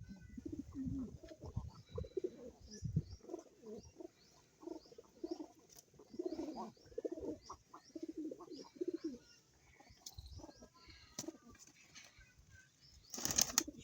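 Pigeons or doves cooing in a run of repeated low calls for most of the first nine seconds, with small birds chirping high and thin throughout. A brief loud rustle or flap comes near the end.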